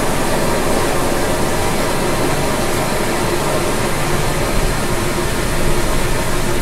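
Emergency drench shower running at full flow, about 20 gallons a minute: a steady rush of water.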